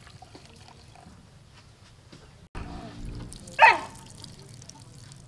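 A dog barks once, a single short bark falling in pitch, over a faint background.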